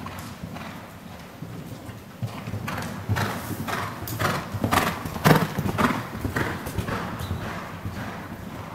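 Hoofbeats of a ridden horse moving on the sand footing of an indoor riding arena, a steady rhythm of dull thuds that grows louder as the horse passes close by about halfway through, then fades as it moves away.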